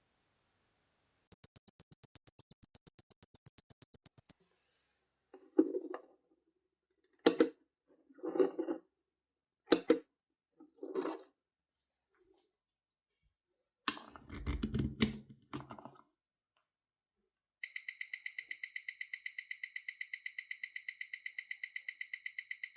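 A short run of rapid ratchet clicks, typical of a watch being wound at the crown, followed by several knocks and taps of handling. From about two-thirds of the way in, a Zenith 2562PC movement ticks in a rapid, even rhythm, running at 28,800 beats per hour.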